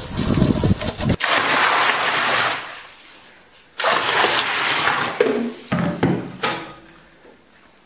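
Water from a hose spraying onto a wooden tofu-pressing box, then, about four seconds in, water poured from a plastic basin into a large iron wok, rushing in and splashing.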